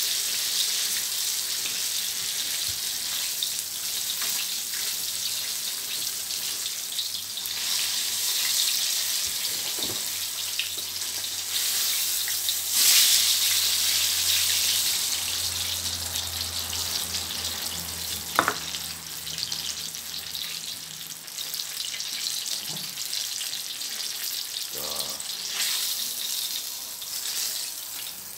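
Chicken wings deep-frying in hot oil in a steel wok: a steady sizzling hiss that grows gradually weaker toward the end as the wings are lifted out. A few sharp clicks of metal tongs against the wok break through it.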